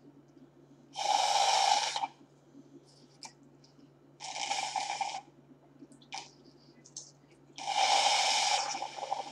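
A child slurping a drink through a plastic straw: three long, noisy slurps a few seconds apart, with small clicks between.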